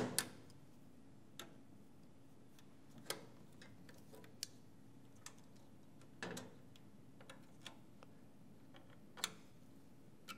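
Small metal parts of a turntable's sheet-metal chassis clicking and ticking as hands and pliers work them loose: a sharp click at the start, then irregular light clicks about every second, over a faint steady hum.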